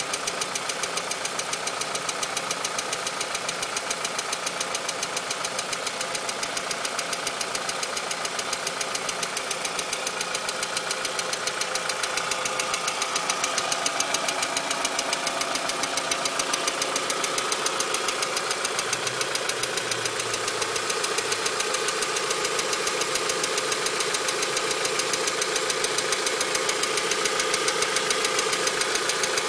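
Volkswagen Mk IV 2.0-litre four-cylinder engine running steadily with a rapid, even ticking that keeps time with the engine; the cause of the tick is undiagnosed.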